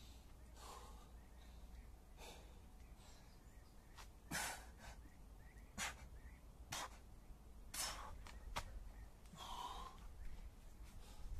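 A man breathing hard during burpees, with soft breaths early on and a run of short, forceful exhales in the middle as he drops to the ground and jumps back up.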